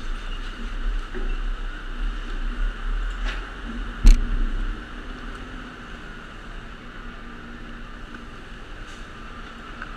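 Garbage truck running with a steady hydraulic whine and low rumble as it ejects its load of recycling, with scattered rattles and one sharp clunk about four seconds in, after which the sound settles quieter and steadier.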